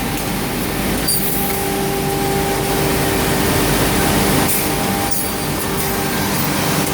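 Homag Optimat KAL 310 edgebanding machine running: a steady motor hum with a constant whine and hiss, and a few short clicks about a second in and again around four to five seconds in.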